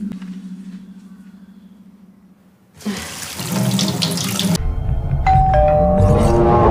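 A kitchen tap runs into a sink, starting abruptly about three seconds in after a low drone fades away. Near the end the water gives way to a swelling deep rumble, with a few chime-like tones stepping downward.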